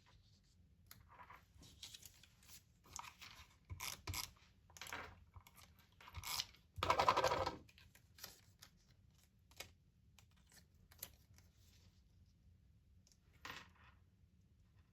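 Paper being handled and cut: short rustles and scrapes of scrapbook paper being moved and held down, with one louder, steady stroke lasting about a second, seven seconds in, and a few lighter ones later.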